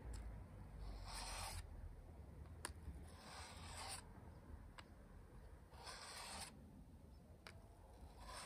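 Steel lopper blade being rubbed along a flat sharpening card, sharpening the bevelled cutting edge: faint rasping strokes, four of them, about one every two and a half seconds.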